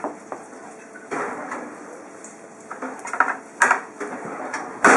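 Kitchen clatter: utensils and dishes knocking on hard worktops in a scatter of short, sharp knocks, the loudest near the end.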